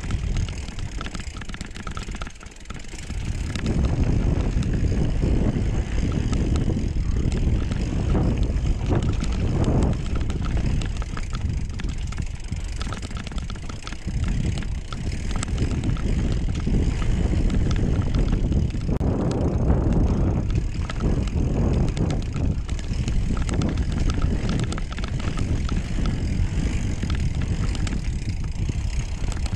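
Mountain bike rolling down a dirt trail: a steady rumble of tyres and wind buffeting the microphone, with the bike rattling over the ground. The noise dips briefly about two seconds in, then carries on.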